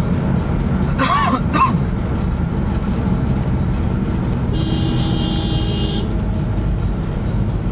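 Steady low engine and road rumble of a moving vehicle, with a horn held for about a second and a half about two-thirds of the way in. About a second in, a short call rises and falls twice.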